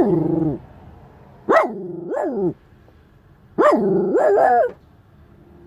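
Shiba Inu barking in three bouts, each a sharp bark running into a drawn-out cry that falls in pitch: agitated alarm barking at a stranger close by.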